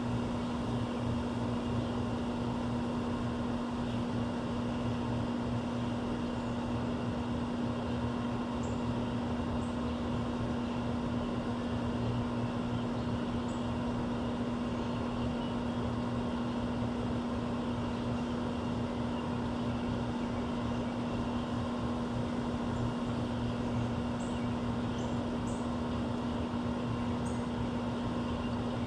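Steady machine hum with one strong low tone, like a nearby air-conditioning unit or fan, running without change. A few faint, very short high chirps of small birds come through it, once or twice near the middle and several times near the end.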